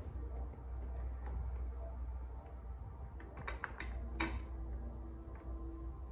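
A few sharp clicks and a knock from hands working plastic parts and hoses at an engine bay's coolant expansion tank, the loudest click just past the middle, over a steady low hum.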